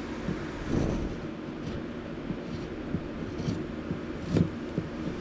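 Steel carving blade shaving a driftwood wand: a series of short scraping strokes, roughly one a second, the loudest about four and a half seconds in.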